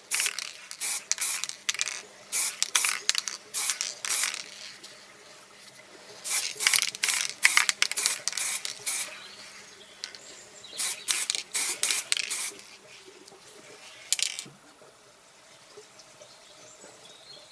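Aerosol spray paint can hissing in repeated short bursts, in four clusters with pauses between.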